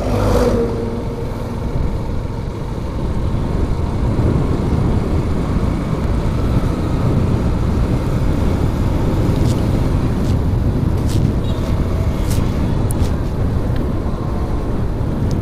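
Riding a motorcycle through road traffic: a steady low rumble of engine and road noise, with a few faint clicks in the second half.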